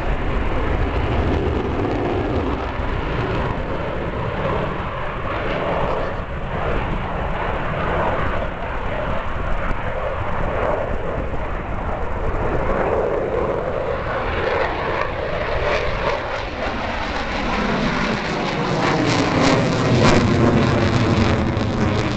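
Jet noise from an F-16 fighter's single turbofan engine during a low aerobatic display, a continuous roar that swells toward the end, with a sweeping, phasing tone and deeper rumble as the jet comes closer, loudest about twenty seconds in.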